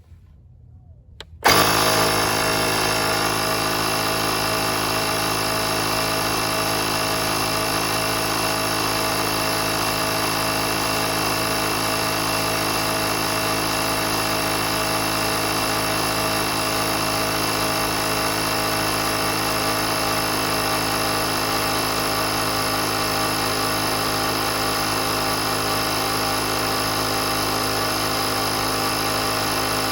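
Oasser portable 12V air compressor switching on about a second and a half in and running steadily at an even pitch.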